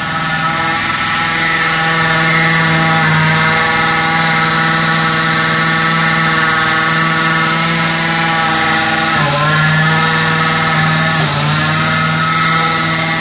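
Truck-mounted ULV fogging machine running steadily at a high, even engine note while it sprays mist. Its pitch sags briefly and recovers twice in the later part.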